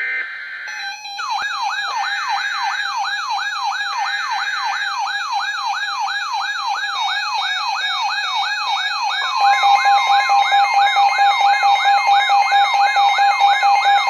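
NOAA weather radios sounding their alert together: a short burst of SAME data tones, then a siren-like alarm sweeping up in pitch about three times a second over a steady tone. About nine seconds in, a second steady warning tone joins and the alarm gets louder.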